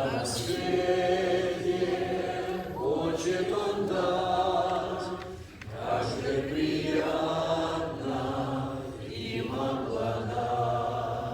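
Congregation singing a hymn together in slow, held phrases, with a short break between phrases about halfway through.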